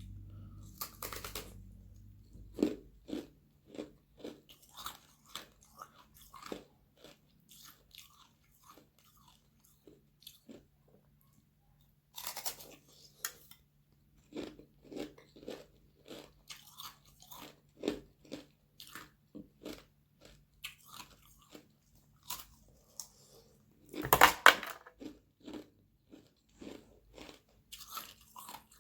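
Ice made from frozen carbonated water being bitten and chewed up close. Three hard bites snap off pieces: one about a second in, one near the middle and the loudest near the end. Between them come quick crunchy chews, about one to two a second.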